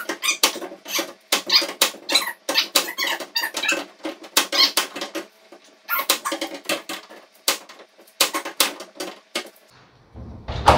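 A rapid run of short squeaks, scrapes and clicks in spurts, as a tool is worked in at the Volvo 145's tailgate to reach its latch. The latch has to be forced open this way because the outside release does nothing while parts of the inner linkage are missing.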